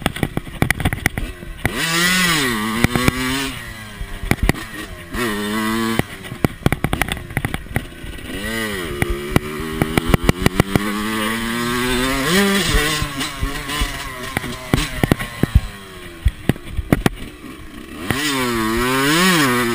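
Yamaha YZ125 single-cylinder two-stroke dirt bike engine being ridden, its revs climbing and dropping several times as the throttle is worked, with many sharp knocks and clatters mixed in.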